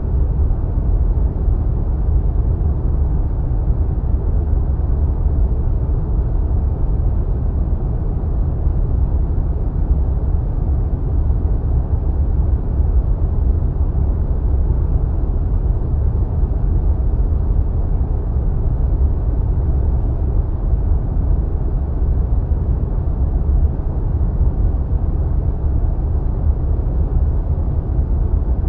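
Wind sound effect: a steady, deep rushing of wind, as heard when flying high through clouds, with no gusts or swells.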